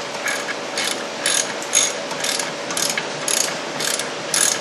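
Socket ratchet wrench with a 1/2 inch socket clicking in quick strokes, about two swings a second, as the nuts holding the brake master cylinder are run onto their bolts.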